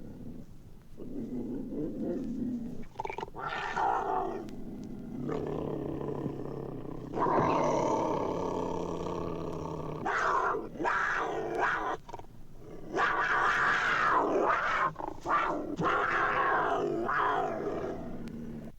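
Lion roaring and growling: a series of long, loud roars with short breaks between them, from a vintage sound-effects recording.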